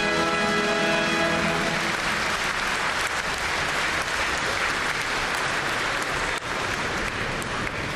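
Large audience applauding steadily, with music that stops about two seconds in.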